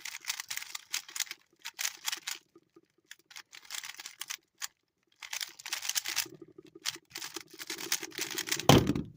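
Standard Rubik's Cube being turned fast in a speed solve: quick clicking and clacking of the plastic layers, in bursts with short pauses, with a louder thump near the end.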